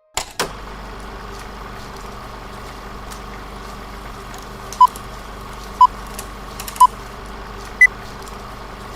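Steady hiss and low hum. Over it come three short beeps of the same pitch about a second apart, then a fourth, higher beep a second later.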